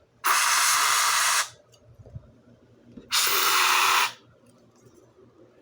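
Aerosol smoke-detector test spray hissing in two short bursts of about a second each, a couple of seconds apart, sprayed at a smoke detector to set it off for testing.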